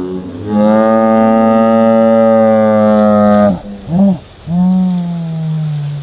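Edited-in sound clip of long, drawn-out pitched calls: one held steady for about three seconds, a short one, then one that slides downward near the end.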